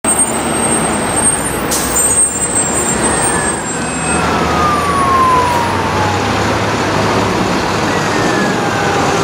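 Fire engine siren wailing on an emergency run, its pitch falling in long slow sweeps, over steady city traffic noise.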